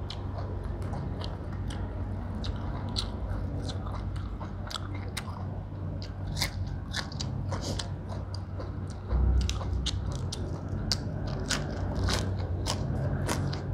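Close-up mouth sounds of a person chewing raw greens and crisp vegetable stems, with many short, sharp crunches through the whole stretch. A steady low hum runs underneath.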